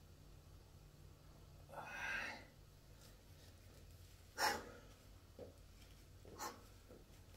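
A man breathing hard from exertion between dumbbell curls: a long breathy exhale about two seconds in, then short sharp breaths out through the nose and mouth, the loudest about four and a half seconds in.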